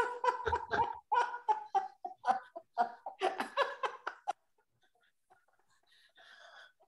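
Laughter-yoga laughter coming through a video call: rapid breathy bursts of laughing for about four seconds, then it dies away to a faint breathy laugh near the end.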